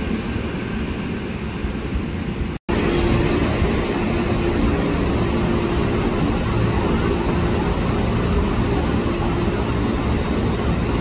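Steady rumble of a railway station, then, after a sudden cut about three seconds in, an approaching diesel-electric locomotive with its engine droning and a steady low hum.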